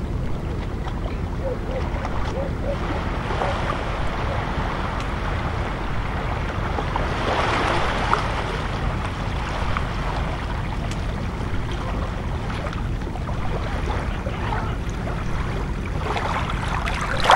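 Gentle sea water lapping and washing over a shallow pebble shore, over a steady low rumble. The wash swells about seven seconds in and again near the end.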